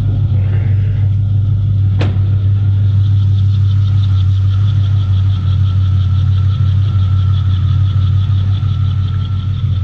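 L98 6.0-litre V8 on individual throttle bodies, idling steadily and completely untuned, with a single sharp click about two seconds in.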